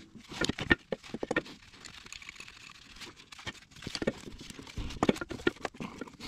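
Irregular clicks and knocks of a GT2260V turbocharger housing being worked by hand into place on its mounting, metal knocking on metal. They come in two bunches, near the start and again in the last couple of seconds.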